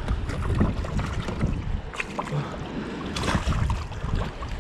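Water sloshing against a plastic fishing kayak's hull, with wind buffeting the microphone and a few light knocks.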